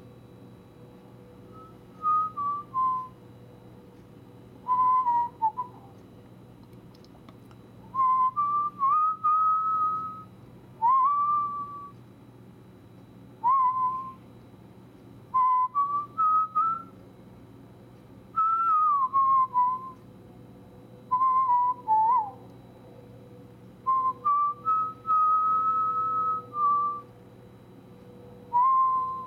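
A person whistling a tune in short phrases of gliding and held notes with brief pauses between them, over a steady faint low hum.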